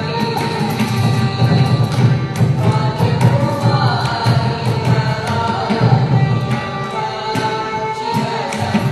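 Live Carnatic music: voices singing over violin accompaniment, with steady percussion strokes throughout.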